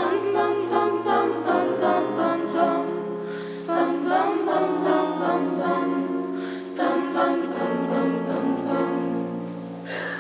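Voices singing together in three sustained, wordless-sounding phrases, the second coming in about four seconds in and the third about seven seconds in.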